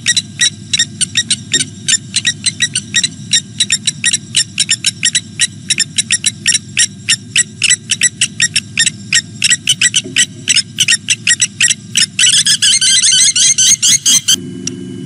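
A night animal calling in a fast, steady series of sharp pulses, about five a second, over a steady low hum. The calling thickens into a denser chatter about twelve seconds in, then cuts off suddenly.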